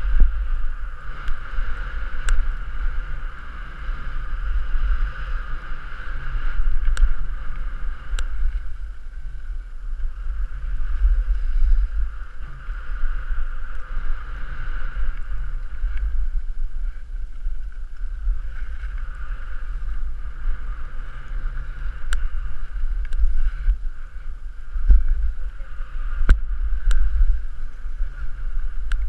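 Wind buffeting the camera's microphone as it travels down a ski slope, a low rumble that swells and fades, over the hiss of skis sliding on packed snow, with a few sharp clicks.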